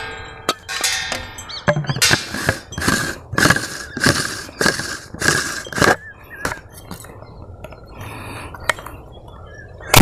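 Aerosol spray hissing in a run of short bursts into a homemade PVC-pipe spray-fuelled cannon, a few faint clicks, then a loud bang right at the end as the cannon fires.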